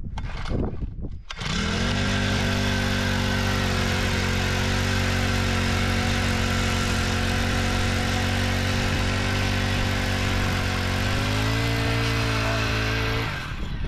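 Gas-powered ice auger pull-started, catching on the pull and settling into a steady idle. About eleven seconds in it speeds up as the bit goes into the ice to drill, then cuts off abruptly just before the end.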